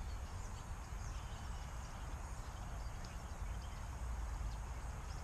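Steady low wind rumble on the microphone over outdoor background noise, with a few faint high bird chirps.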